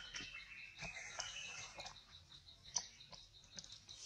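Faint outdoor ambience: an insect's steady, rapid pulsing chirp with scattered small ticks, and one sharper click a little before three seconds in.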